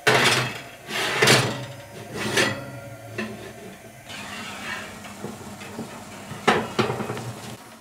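Metal springform cake tin scraping and clanking on a wire oven rack as it is slid in, with several sharp metal-on-metal knocks; near the end two more clanks as a tin is drawn back off the rack.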